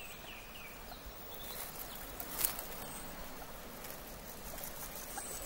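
Faint outdoor nature ambience: a steady soft hiss, with a few faint high chirps near the start and one short, sharp sound about two and a half seconds in.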